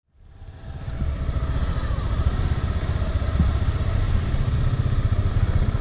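Motorcycle engine running as the bike is ridden along, a steady low rumble that fades in over the first second.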